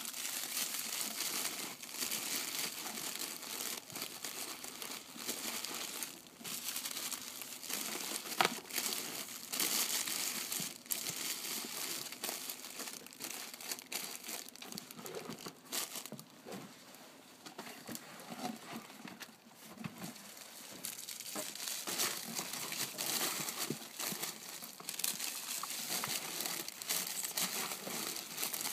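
Clear plastic flower sleeves crinkling and rustling as wrapped hydrangea bunches are handled and laid into a cardboard box, in uneven bursts, with one sharp knock about eight seconds in.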